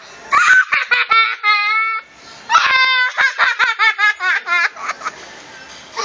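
A young boy laughing hard and high-pitched. A burst of laughs ends in a drawn-out squeal within the first two seconds. After a short breath, a fast run of ha-ha pulses follows and dies away about five seconds in.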